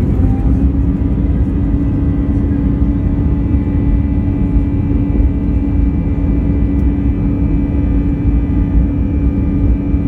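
Steady engine and airflow noise heard from inside the passenger cabin of an Airbus A320-200, with a steady hum that sets in at the start and holds throughout.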